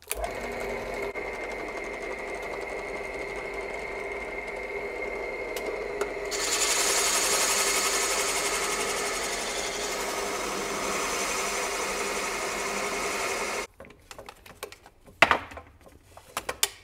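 Drill press running with a 1.5 inch Forstner bit. About six seconds in the bit cuts down through a plywood side piece, adding a louder hiss of cutting wood that stops abruptly a few seconds before the end. After that come a few light knocks.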